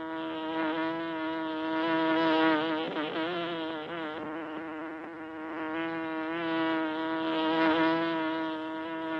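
Honeybees buzzing at the hive: a steady, pitched hum that wavers in pitch about three seconds in and grows louder twice, a couple of seconds in and again near the end.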